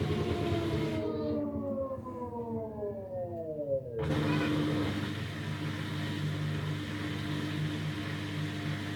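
LG F-12U2HCS2 washing machine's drum motor spinning down, its whine falling in pitch until it fades about four seconds in. After that the machine gives a steady low hum.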